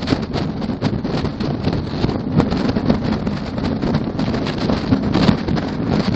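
Wind buffeting a microphone exposed on top of a load carried at highway speed, a loud, gusting rush over a low rumble of road travel.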